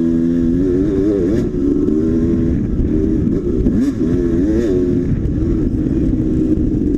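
Dirt bike engine running hard, its pitch rising and falling again and again as the throttle is worked and gears change.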